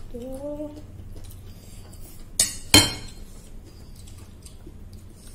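Tableware clattering: two sharp knocks of a utensil against a dish about two and a half seconds in, the second the louder, with lighter clinks of dishes.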